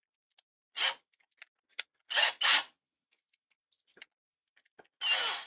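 A few short rustling or scraping sounds and small clicks from handling tools and parts on a workbench, as a drill bit is changed.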